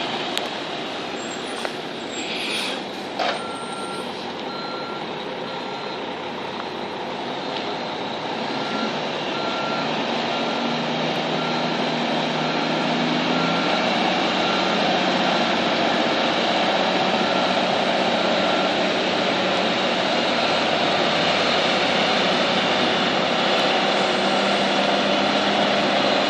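2000 Mack RD690S concrete mixer truck's diesel engine running as the truck manoeuvres, getting louder from about eight seconds in. Its backup alarm beeps about once a second from a few seconds in until about two-thirds of the way through, and there is a short air hiss about three seconds in.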